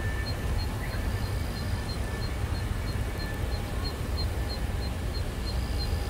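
Distant F-4 Phantom jet engines: a low, steady rumble. A high, regular pip repeats about three times a second over it.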